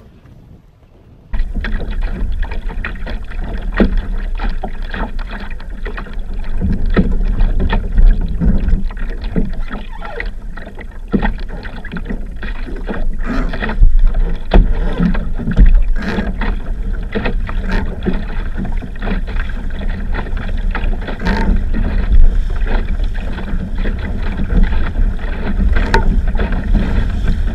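Water rushing and slapping against the fibreglass hull of a small sailing dinghy under way, with a steady low rumble and frequent knocks as the boat pounds through the chop. It comes in suddenly and loud about a second in.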